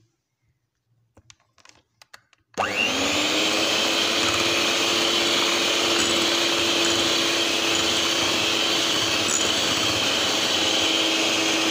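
A few faint clicks, then an electric beater switches on about two and a half seconds in, its motor quickly rising to speed and then running steadily as it beats a cake batter of eggs, sugar and oil.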